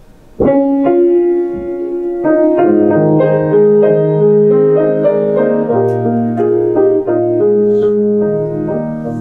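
Piano playing a slow introduction to a hymn in sustained chords, starting suddenly about half a second in.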